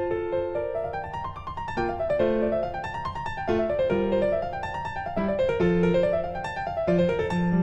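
Background piano music: quick runs of notes climbing and falling over a low bass line.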